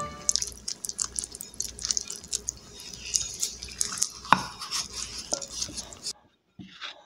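Wooden spoon stirring flour and liquid into dough in a bowl: quick, irregular scraping strokes with clicks and knocks of the spoon against the bowl's sides, one sharper knock a little past four seconds in. The stirring stops abruptly about six seconds in.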